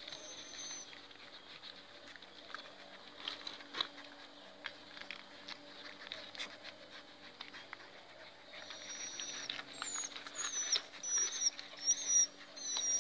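Puppies suckling at their mother's teats, making scattered soft wet clicks and smacks. From about two-thirds of the way through comes a run of short, high-pitched squeaks.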